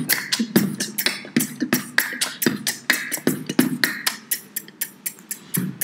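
Beatboxing: one voice making a quick, steady beat of mouth-made clicks, hisses and low thuds.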